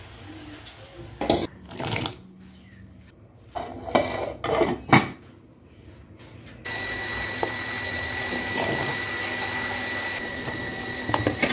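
Sharp metal knocks and scrapes from an aluminium cooking pot and its lid, several in the first five seconds. From about seven seconds in, a steady hiss of a pot of chicken soup boiling on a gas burner, with a thin high tone running through it.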